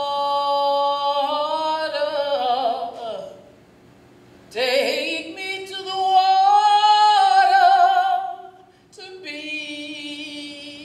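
A woman singing unaccompanied, holding long notes with vibrato. The voice slides down about three seconds in and pauses briefly. It comes back in loudly with a rising swoop, holds a long note, then drops to a softer held line near the end.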